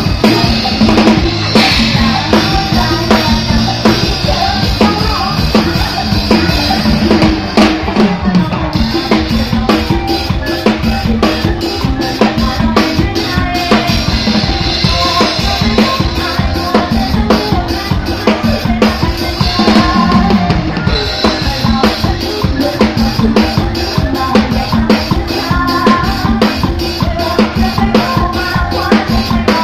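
Loud dance music through a stage PA, driven by a drum kit's steady, fast beat of bass drum and snare, with keyboards.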